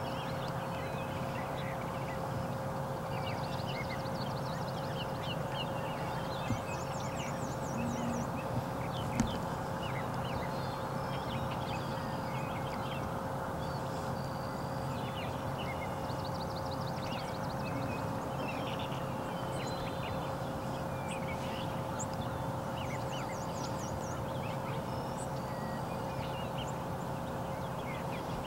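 Small songbirds chirping and trilling over a steady field background with a constant low hum, with two faint knocks, one about six seconds in and another about nine seconds in.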